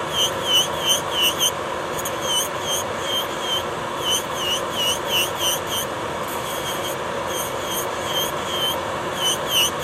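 Electric nail drill (e-file) running steadily with a white bit grinding down thick gel polish on a fingernail. Each pass of the bit over the nail adds a short squeak, about three a second, coming in runs.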